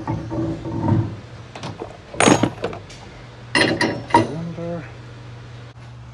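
A car wheel is hung on a wheel balancer's shaft and the threaded clamping nut is run on, giving a few sharp metal clanks, the loudest about two seconds in and another cluster near four seconds, over a steady low hum.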